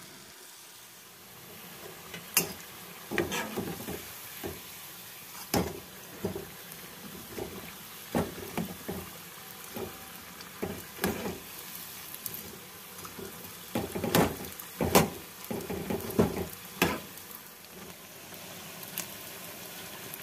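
Battered potato cubes deep-frying in a kadai of hot oil with a steady sizzle. Irregular sharp clicks and knocks run through most of it as more pieces are dropped in and stirred with a metal slotted spoon against the pan. Near the end only the sizzle is left.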